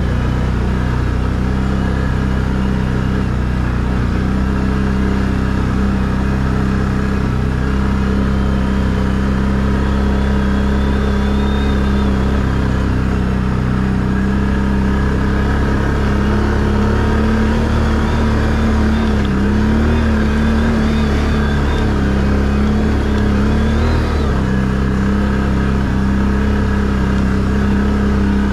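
ATV engine running steadily at low trail speed, heard close up from on board the quad. Its pitch holds even, wavering a little past the middle as the throttle shifts.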